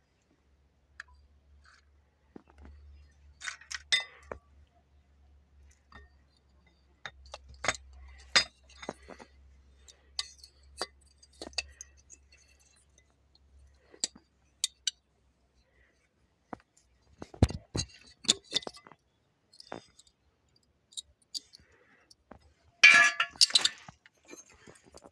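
Denso 7SEU17C air-conditioning compressor rattling: irregular metallic clinks and short rattles, with a louder burst of rattling near the end. The owner puts it down to the bearing, which he says should be changed.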